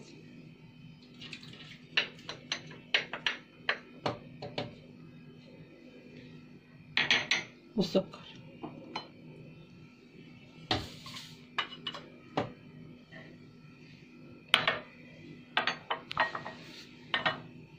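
Scattered clinks and knocks of a wooden spoon against glass bowls and a blender jar as ingredients are scooped and tapped off into the jar, over a faint steady hum.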